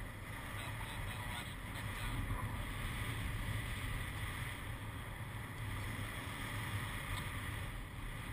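Steady rush of air flowing over the camera microphone of a paraglider in flight.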